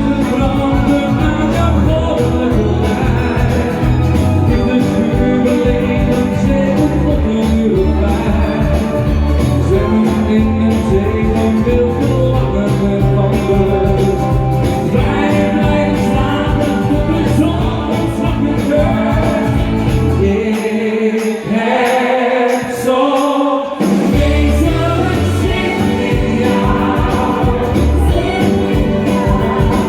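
Up-tempo pop music with a steady bass and drum beat, sung or backed by vocals. About twenty seconds in, the bass and drums drop out for a few seconds, then the full beat comes back.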